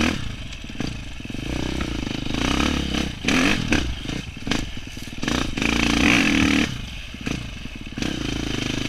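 Dirt bike engine revving hard while being ridden along a dirt trail, its pitch rising and falling as the throttle is opened and closed, with several brief dips as the rider backs off.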